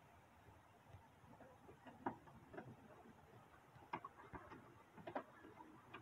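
A few faint, scattered plastic clicks and taps as the door handle bezel and its retaining tab are worked into place on a truck door panel.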